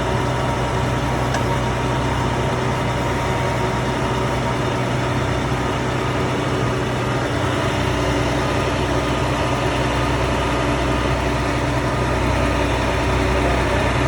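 Engine of a water well drilling rig running steadily at an even speed.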